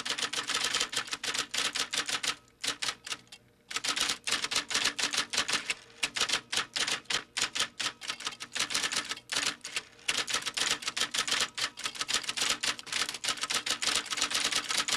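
Typewriter sound effect: rapid key clacks, many a second, keeping pace with text typing out on screen. A pause of about a second comes roughly two and a half seconds in.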